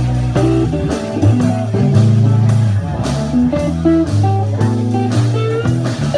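Live blues band playing: electric guitars picking melody lines over a steady low bass line, with drums keeping time.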